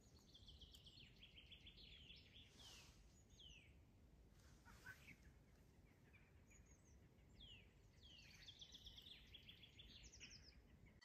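Faint birdsong: small birds sing several short phrases of quick chirps and downward-sliding trills, over a low steady outdoor hiss.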